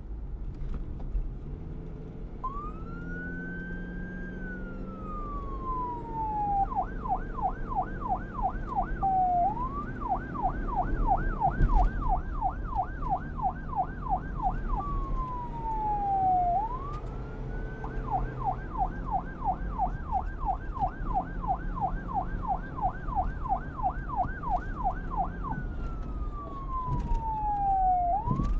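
Police car siren, starting about two seconds in and switching back and forth between a slow wail that climbs and then falls away, and a fast yelp of several sweeps a second. A low rumble runs underneath.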